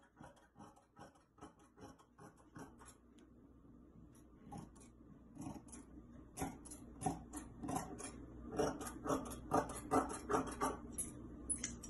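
Scissors cutting through stretchy lightweight fabric: a run of quick snips, about four a second. They pause briefly about three seconds in, then resume, louder in the second half.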